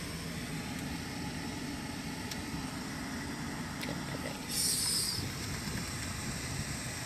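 Car cabin at low driving speed: a steady low engine and road rumble. About four and a half seconds in, a brief loud hiss cuts in for under a second.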